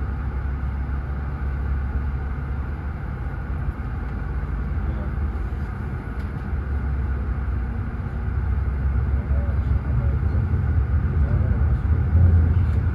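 Steady low rumble of a vehicle in motion, heard from inside, growing a little louder in the last few seconds.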